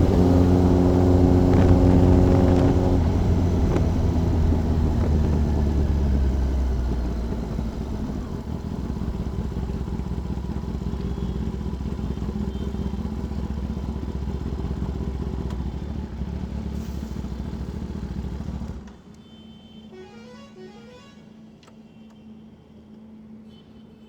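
Sport motorcycle engine running at speed, with a steady pitch at first, then easing off and settling from about seven seconds in. It cuts off abruptly about nineteen seconds in, leaving only a faint low hum.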